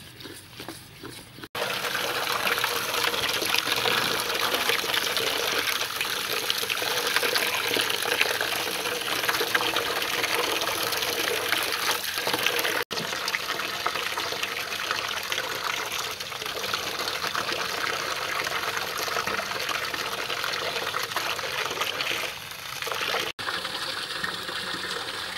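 Water gushing and splashing in a metal basin as lettuce leaves are washed by hand. The sound is quieter for the first second or so and cuts out briefly twice.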